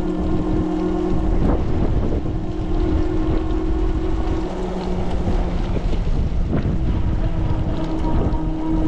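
Ariel Rider Grizzly e-bike riding through pouring rain: a steady hum from its electric hub motor fades in the middle and returns near the end. Under it are wind noise on the microphone and the tyres hissing on the wet road.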